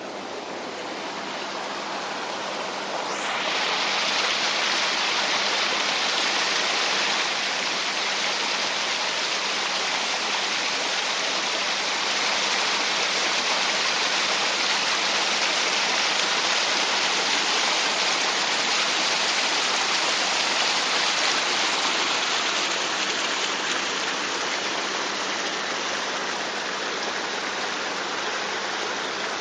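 Floodwater gushing from several pump discharge hoses into a drainage ditch, a steady loud rushing and splashing. It gets suddenly louder about three seconds in and eases a little near the end.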